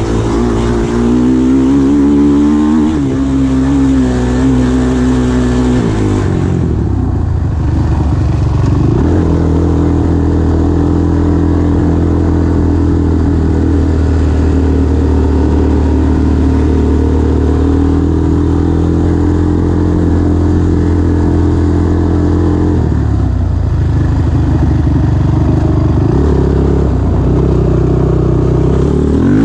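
2005 Honda TRX450R quad's single-cylinder four-stroke engine being ridden, its pitch rising and falling with throttle and gear changes over the first few seconds, dropping briefly, then held steady for a long stretch before falling and picking up again near the end.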